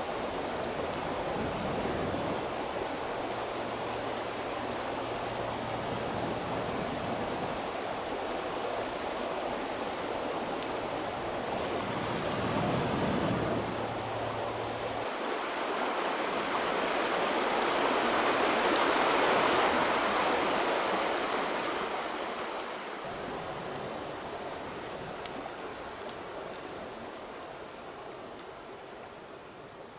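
River water flowing and rushing. It grows louder about two-thirds of the way through, then fades toward the end.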